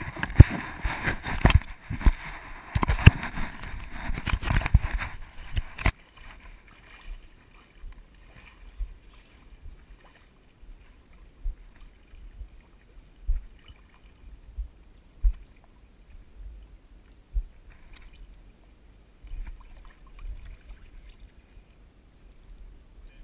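Camera handling noise: close rubbing, crackling and knocks on the camera, which stop abruptly about six seconds in. After that, only scattered faint low thumps.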